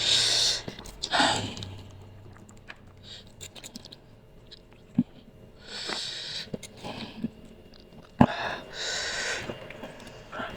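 Close-miked eating of instant noodles: a few short hissy slurps, with quieter chewing and small mouth clicks between them.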